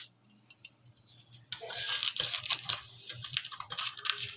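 Plastic cling film crinkling and crackling as it is drawn over a tray of dough balls. It starts about a second and a half in, after a few light clicks.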